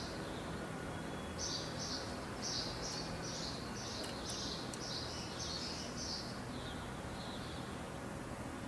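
Domestic canary singing a phrase of quick, high repeated chirping notes lasting about six seconds, over a steady background hiss.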